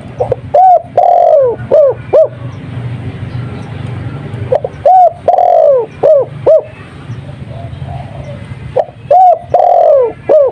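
Spotted dove (tekukur) cooing its 'kuk 2' song three times, about four seconds apart: each phrase is a short note, a longer coo falling in pitch, then two short clipped notes. A steady low hum runs underneath.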